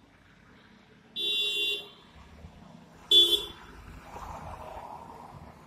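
Vehicle horn honking twice: a held blast of under a second, then a shorter, louder toot.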